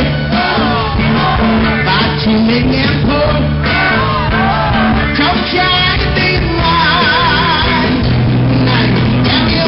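Male singer singing live into a microphone, backed by a live band with steady bass notes under the voice.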